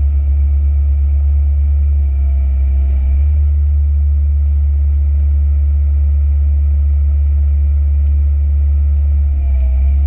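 Komatsu PC138UC excavator's diesel engine running steadily, heard from inside the cab as a heavy low drone. A faint whine rises and falls over it now and then, once briefly near the end.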